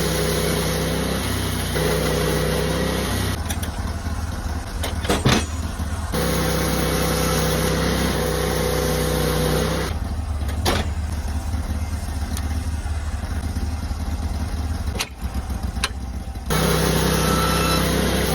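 Portable sawmill's engine running steadily as the mill saws a maple log, its sound changing abruptly several times, with a few sharp knocks.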